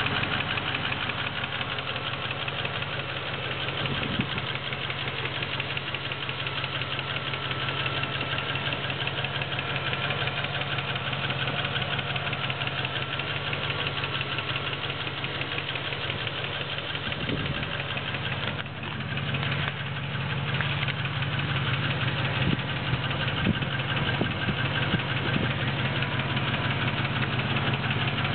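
Land Rover Discovery engine idling steadily with a fast, even ticking noise. It dips briefly about two-thirds of the way through, then runs a little louder.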